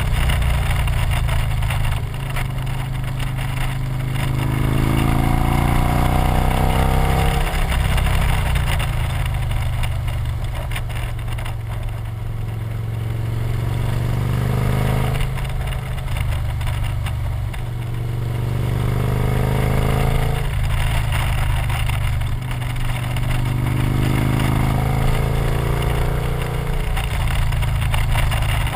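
Victory motorcycle's V-twin engine running under way, its pitch rising several times as the bike accelerates, over steady wind and road noise.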